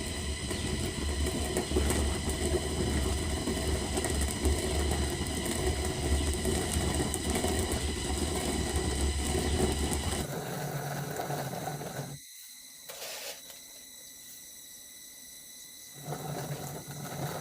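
Jhato, a hand-turned stone quern, grinding maize: a continuous stone-on-stone rumble that stops about ten seconds in, with a shorter bit of grinding sound again near the end.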